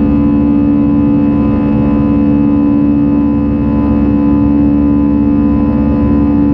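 Airbus A320 engines heard inside the cabin during the climb after takeoff: a steady drone with a strong hum and several held tones over a wash of air noise.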